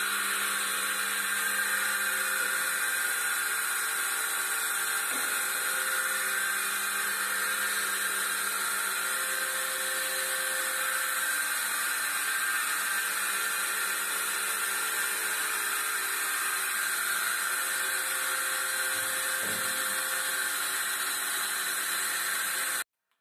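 Milking machine's vacuum pump unit running steadily, a constant mechanical whine with a strong hiss; it stops abruptly just before the end.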